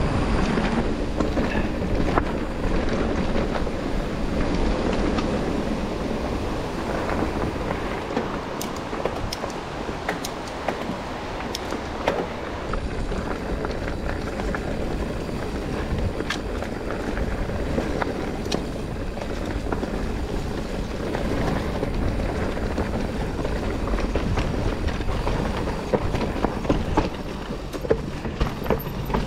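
Mountain bike riding over a rough trail: a steady rush of tyre noise on dirt and stones, with frequent rattles and clicks from the bike.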